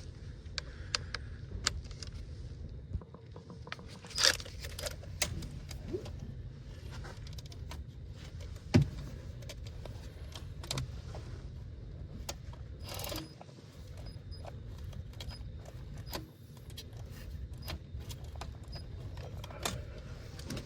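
Scattered metallic clicks and clinks of tools and small metal parts being handled, with two sharper knocks about four and nine seconds in, over a steady low hum.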